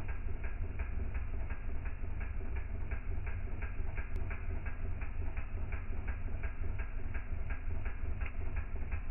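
Campfire burning, with a run of sharp clicks about three to four a second over a steady low rumble.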